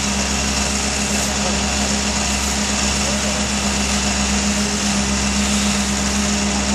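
Diesel engine of a Doosan amphibious excavator running steadily under load, with a constant low hum.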